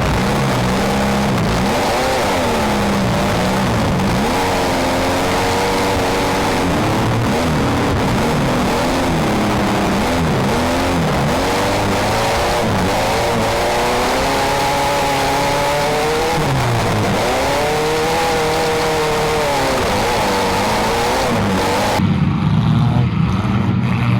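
Several compact demolition derby cars' engines revving and running hard, their pitches rising and falling constantly and overlapping. Near the end the sound cuts abruptly to a louder, duller low rumble.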